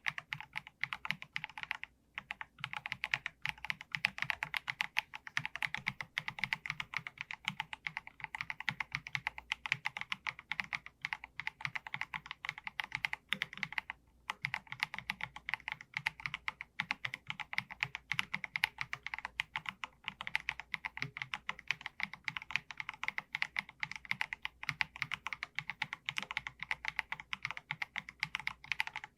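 Fast, continuous typing on an Akko MG108B full-size mechanical keyboard with Akko V3 Piano Pro switches: a dense stream of key clacks, with short pauses about two seconds in and again about fourteen seconds in.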